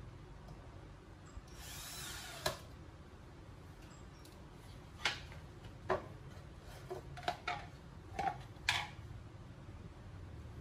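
Clicks and knocks of melamine-faced engineered-wood cabinet parts being handled and fitted together during assembly, with a short whirr of about a second early on that ends in a sharp click.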